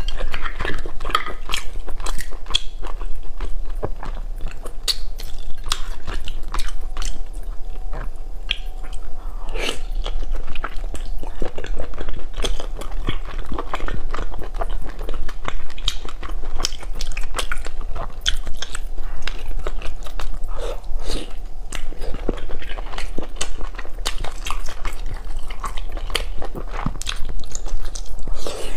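Close-miked mouth sounds of eating boiled whole squid: wet, irregular chewing and biting with lip-smacking clicks.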